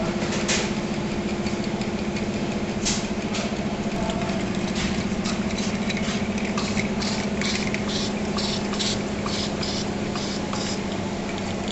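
Automatic wrap-around sticker labeling machine running: a steady motor hum with a low tone, and short clicks, a few early on and then about two a second, as plastic containers pass along its conveyor through the labeling head.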